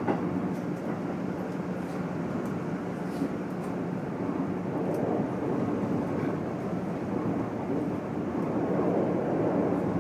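Running noise inside a Keikyu N1000-series stainless EMU motor car, fitted with MB-5121-A traction motors and Toyo IGBT VVVF control, travelling at steady speed: a continuous rumble of wheels on rail with steady low tones and a few faint ticks. This set is known for its unusually loud motor noise, and the sound swells slightly near the end.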